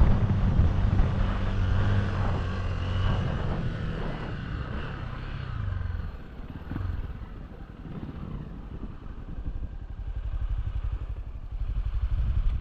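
Honda Tornado 300 single-cylinder enduro motorcycle engine being ridden under load. It pulls hard at first, then eases off with falling pitch about five seconds in, runs quieter for a while, and picks up again near the end.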